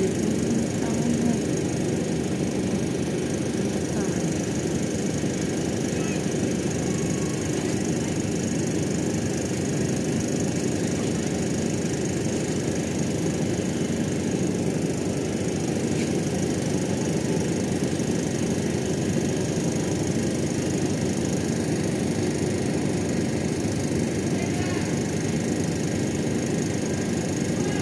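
Ship's engine running with a steady low drone that does not change.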